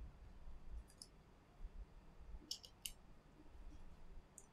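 Faint light clicks of small metal parts and a precision screwdriver being handled over an opened iPhone XS: a few short ticks, clustered about two and a half to three seconds in, with one near the end, over quiet room tone.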